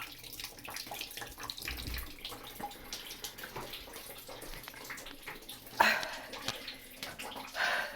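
Sewage water from a septic backup trickling and splashing on a flooded bathroom floor, with two louder splashes near the end.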